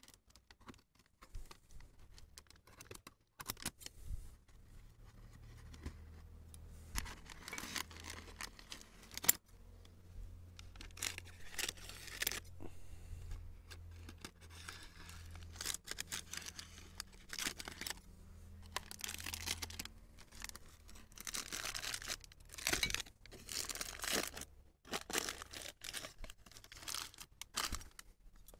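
Plastic bag rustling and crinkling in repeated bursts of a second or two, with a faint low hum underneath through the middle.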